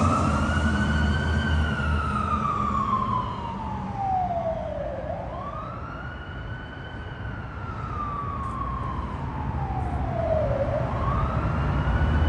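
Fire engine siren wailing as the engine pulls away. Each cycle climbs quickly, then falls slowly, about every five seconds, and it grows fainter mid-way. A low engine rumble is heard at the start.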